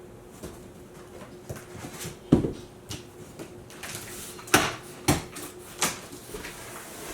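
Handling noise: a handful of sharp knocks and clicks as things are moved about, the loudest about two and a half seconds in and three more between four and a half and six seconds in, over a faint steady hum.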